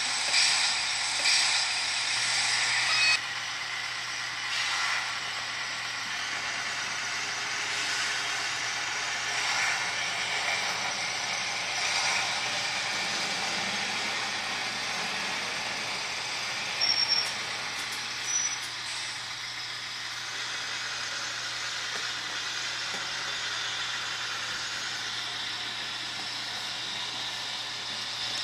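Model railway work vehicles, a motorized track crane and a tamping machine, running along the track with a steady mechanical running noise over a low hum. The noise is louder for the first three seconds, and two short high beeps come about 17 and 18 seconds in.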